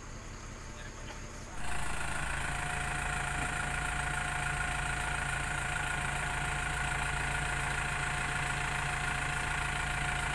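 Heavy diesel engine idling steadily, a low rumble with a constant high tone on top, starting abruptly about a second and a half in after a fainter steady hum.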